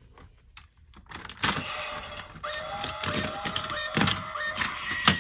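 Plastic parts of a DX Siren Builder toy robot clicking and snapping as it is handled and assembled, with a steady electronic tone from the toy's sound unit for about two seconds in the middle. A sharp snap near the end is the loudest sound.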